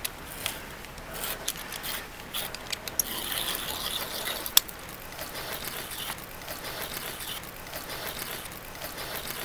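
An ice screw being cranked by hand into waterfall ice: a scratchy grinding as its threads cut into the ice, stronger in the first half, with scattered sharp clicks, the loudest about four and a half seconds in.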